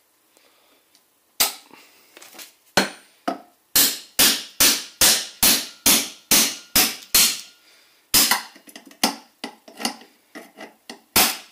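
Hammer blows on steel vice grips (locking pliers) clamped on a nut at a Jaguar IRS hub flange, hammering them round to turn the nut: about twenty sharp metal strikes, a quick even run of two to three a second in the middle, then slower, scattered blows.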